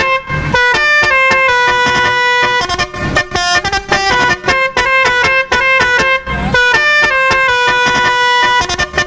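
Musical vehicle horn playing a tune of held notes stepping up and down; the phrase repeats about halfway through.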